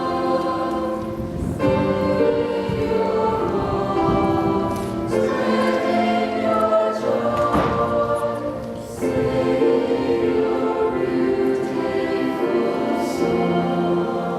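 Church choir singing in harmony, with long held notes that change every second or two.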